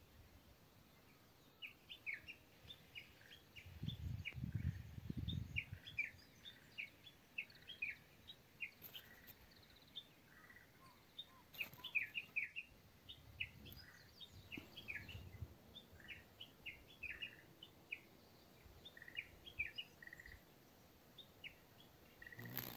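Small birds chirping: many short, high calls of a few a second, with a low rumble about four seconds in that lasts a couple of seconds.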